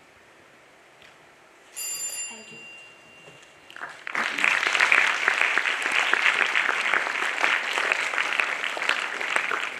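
A small bell rings once and fades over about a second and a half, then an audience breaks into applause about four seconds in that carries on steadily.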